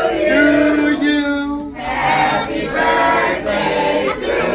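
A small group of men and women singing a birthday song together, unaccompanied, in held notes.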